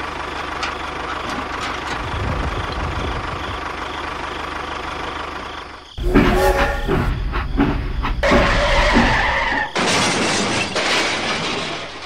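A steady mechanical running sound, then about six seconds in a sudden loud crash and clatter as a toy train derails into a pile of toy bricks, followed by further loud noisy sound with a held tone.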